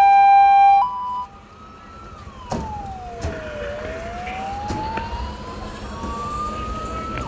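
Emergency vehicle sirens. A loud two-tone hi-lo siren stops about a second in, then a quieter wail glides slowly up and down in pitch. A few sharp knocks sound along with it.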